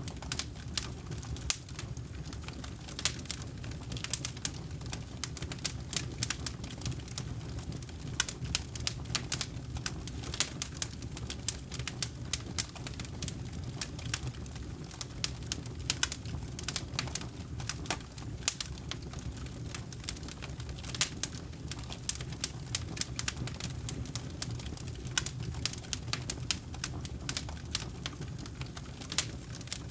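Campfire burning: wood crackling and popping in many irregular sharp snaps, over a steady low rumble of the flames.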